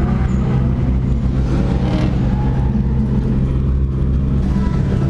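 Toyota Tacoma's stock 2RZ four-cylinder engine running steadily at low revs, heard from inside the open cab, with a fainter rising engine note near the start.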